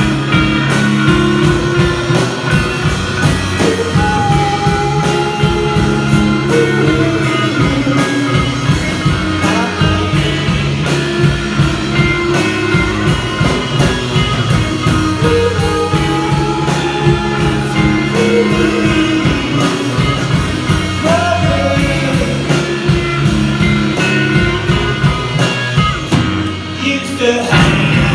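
Live psychedelic rock played by a duo on electric guitar and drum kit, with a sung vocal over a steady drum beat. The drums and bass drop out briefly near the end, then the band comes back in.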